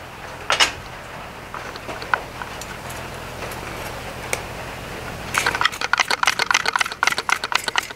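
Bronze wire brush scrubbing a hot forged-iron leaf hook on the anvil in quick rasping strokes, starting about five seconds in. Brushing the iron at black heat leaves a bronze patina on it. A few light clinks of metal come earlier.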